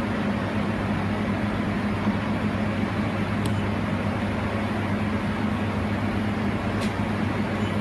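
Steady hum and fan-like whirr from a fiber laser welding machine still running as it is being switched off, with a faint tick twice.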